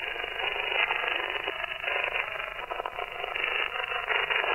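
Upper-sideband receiver audio from a web SDR tuned to the 27 MHz CB band: steady static hiss squeezed into a narrow, telephone-like band, with faint garbled snatches of voice in the noise.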